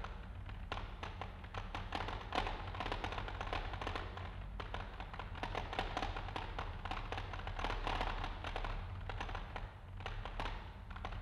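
Heap of rocks vibrated by a bass shaker, the stones rattling and clicking against one another in a dense clatter that swells and eases, over a steady low hum.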